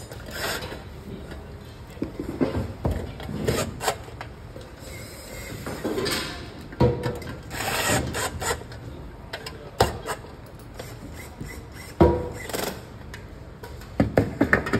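Short runs of a corded electric screwdriver driving screws into an aluminium lamp reflector, among irregular knocks, scrapes and rubbing of metal lamp parts being handled.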